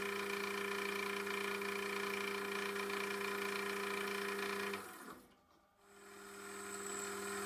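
A cheap benchtop mini lathe runs with a steady motor whine and hum as its chuck spins brass bar stock. About five seconds in the sound cuts out, then builds back up gradually near the end as the lathe runs up again.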